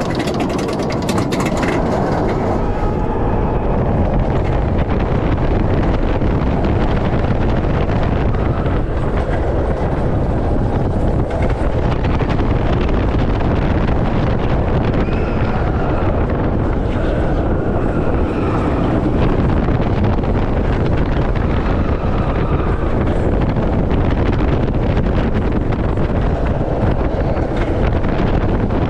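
Wind buffeting the microphone as a roller coaster train runs at speed along its track, a loud, steady rush.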